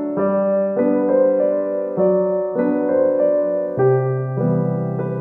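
Background music: a piano-like keyboard playing a steady run of chords, a new chord struck a little under twice a second.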